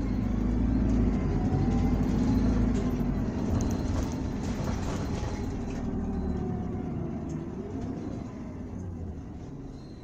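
Running sound from inside a 2019 Isuzu Erga city bus (2DG-LV290N2), whose four-cylinder turbo diesel pulls loudly for the first few seconds with its pitch shifting. The sound then fades steadily over the second half as the bus eases off.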